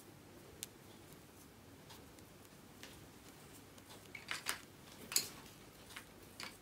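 A fine steel crochet hook and cotton thread working chain stitches: a few faint clicks and scratches, the clearest about four and five seconds in.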